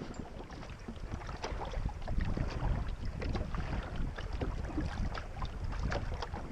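Wind rumbling on the microphone aboard a small sailboat under way in light air, with light irregular ticks and splashes of water against the hull.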